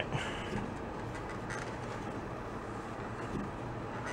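Steady low background hum with a few small clicks and handling noises as a toggle switch is fitted into a metal dash housing; one sharper click comes right at the start.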